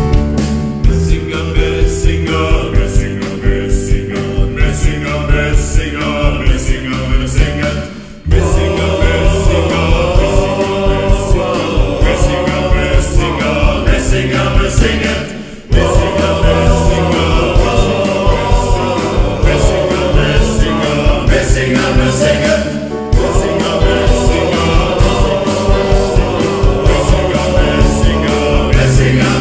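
Men's choir singing in parts with band accompaniment: keyboard, guitar and a drum kit keeping a steady beat. The music breaks off briefly twice, about eight and about fifteen and a half seconds in.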